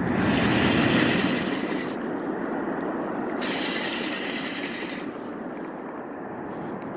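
Fly reel's drag buzzing as a hooked arctic char pulls line off the reel, in two runs of a second or two each, over a steady rushing noise.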